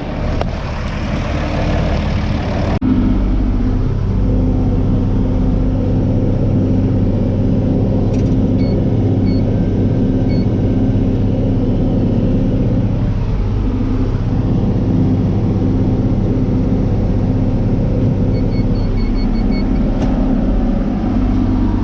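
A tractor engine runs steadily under load while pulling a round baler through corn fodder, a constant low drone. It starts with a steady hiss that cuts off abruptly about three seconds in. Short electronic beeps sound, three near the middle and a quick run of five near the end.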